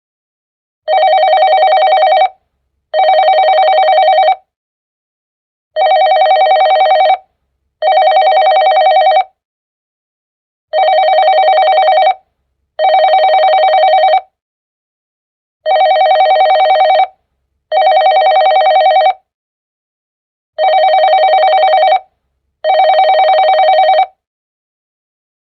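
Digital office phone ringtone: an electronic telephone ring with a warbling tone, sounding in double rings of about a second and a half each, the pair repeating five times with a pause of a couple of seconds between pairs.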